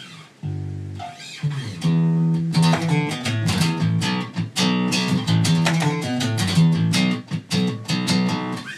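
Jackson electric bass played fingerstyle, unaccompanied: one held low note, then a fast run of rapidly plucked notes with the plucking finger working back and forth across the strings. The run stops just before the end.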